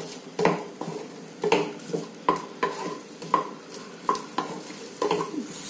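Wooden spatula stirring and scraping through fried vegetable manchurian balls in sauce in a nonstick frying pan, about two or three strokes a second, over the sizzle of the pan on the heat.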